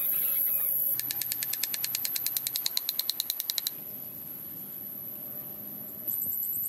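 Insects outdoors: a steady high-pitched buzz, with stretches of rapid, even clicking at about ten clicks a second that start and stop abruptly.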